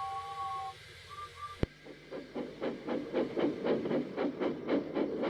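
Steam locomotive whistle sounding two notes together, then two short toots. After a sudden click, the engine starts an even steam chuffing at about four puffs a second.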